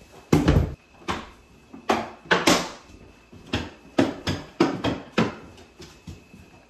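About a dozen irregular knocks and clatters of hard objects being handled, tapped and set down during cabinet installation work. The loudest is a heavy thud about half a second in.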